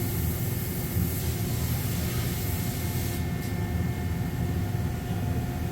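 Mazak Integrex i-150 CNC lathe running under power: a steady low hum with faint steady whining tones. A high hiss cuts off about three seconds in.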